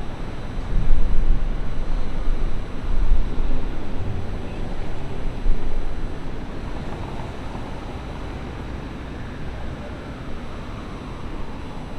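City ambience: a steady wash of distant traffic, with low rumbles from passing vehicles over the first half that settle into a steadier hum.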